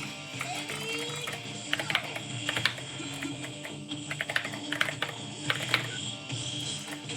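Keys of an 8BitDo Retro Mechanical Keyboard being pressed in irregular clacks, with a few louder strikes near the middle. Music plays underneath.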